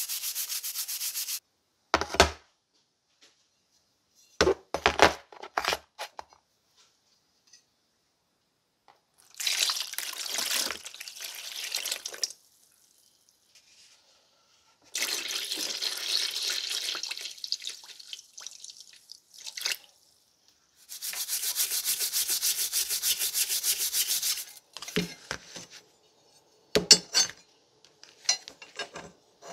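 Wire brush scrubbing a rusty part in a glass dish of dark rust-removal liquid. Short sharp knocks of metal parts being handled, then several stretches of liquid sloshing and splashing, and more brushing strokes, with a few knocks near the end.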